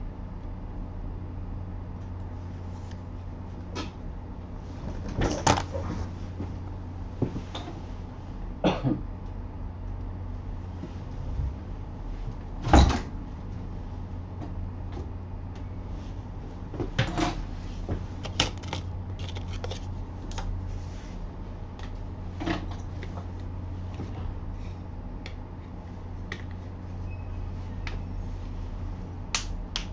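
Scattered knocks and clicks of handling on a workbench, irregular and a few seconds apart, over a steady low hum.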